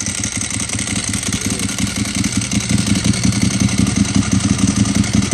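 Ducati 1098S's L-twin engine idling with an uneven, pulsing beat and the rattle of its dry clutch. It gets slightly louder from about halfway.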